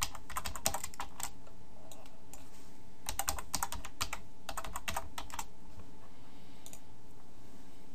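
Typing on a computer keyboard in three short bursts of keystrokes, stopping about five and a half seconds in, followed by one faint click.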